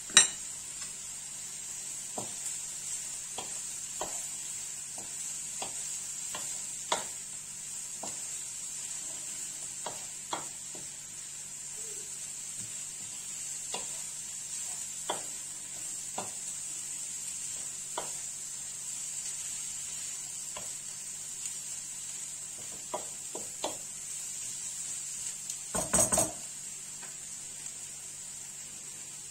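Meat, peppers and onions sizzling steadily in a wok-shaped pan while a wooden spatula stirs them, knocking against the pan every second or so. A louder clatter comes about 26 seconds in.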